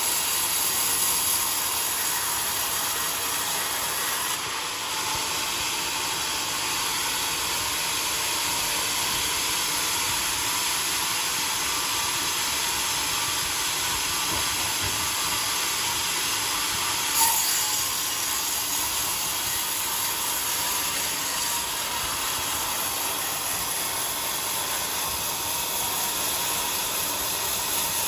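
Homemade sawmill running steadily, a constant high hiss with a faint steady tone, and one short sharp click about seventeen seconds in.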